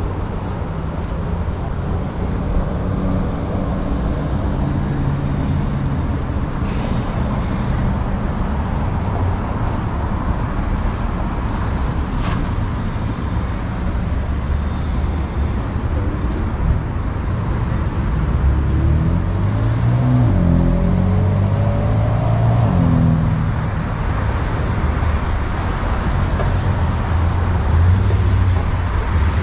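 Downtown street traffic: a steady hum of cars and engines. About two-thirds of the way through, one vehicle's engine note rises and falls in pitch as it drives by.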